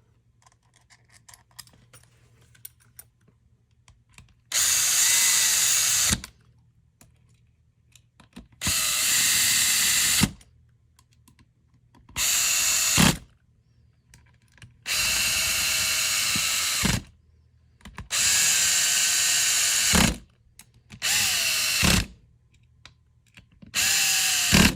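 A power screwdriver driving the airsoft gearbox shell screws in seven short runs. Each run whines steadily for one to two seconds, its pitch sags as the screw seats, and it stops with a short knock.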